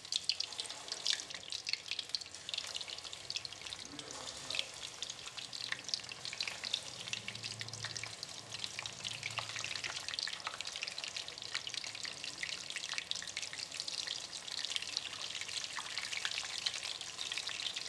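Tempura-battered shrimp deep-frying in hot oil: a steady sizzle thick with fine crackles as the wet batter bubbles and sets.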